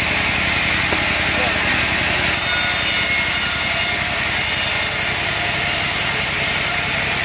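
Vertical band saw blade cutting through a log: a steady rasping saw noise over the even drone of the diesel engine that drives the mill. The cutting noise grows harsher about two seconds in.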